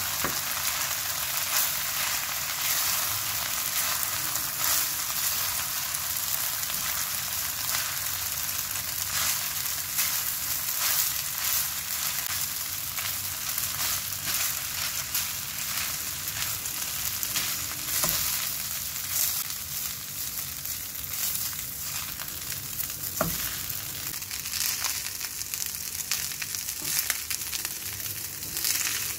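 Food sizzling as it stir-fries in a pan, stirred and scraped with a spatula, with two sharp knocks of the spatula against the pan in the second half.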